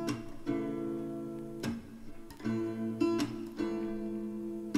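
Background music: a song's instrumental stretch of strummed acoustic guitar chords, with no singing.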